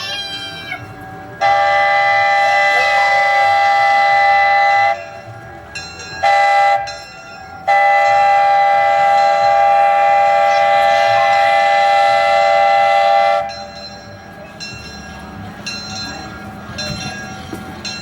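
Locomotive whistle blowing a long blast, a short blast and a long blast, after a first long blast, in the pattern of a long-long-short-long crossing signal. Near the end, the train running with rhythmic wheel clicking.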